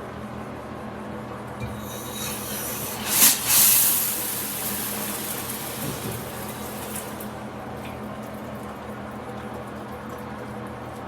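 Water running from a handheld shower head as a steady hiss, with a louder rush of spray for about two seconds, three seconds in.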